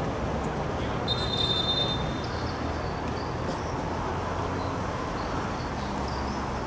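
Football stadium ambience: a steady crowd murmur, with a short high whistle about a second in.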